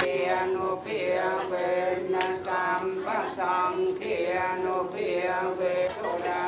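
Voices chanting in a steady, repeating line, with a held tone beneath.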